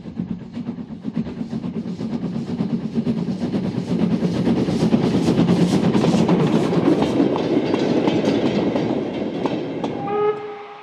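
Steam locomotive working past, its exhaust beats coming about three a second over a heavy rumble that grows louder toward the middle. Near the end the chuffing drops away and a steady pitched whistle sounds.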